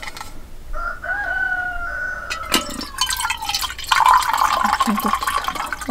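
Warm water poured from a stainless steel kettle into a metal mug, the stream of water growing louder and fuller about four seconds in as it fills the mug.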